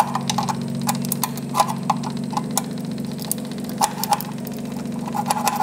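Irregular sharp snapping clicks of ignition sparks as a screwdriver is flicked across the forklift's freshly fitted contact-breaker points, with a steady low hum underneath.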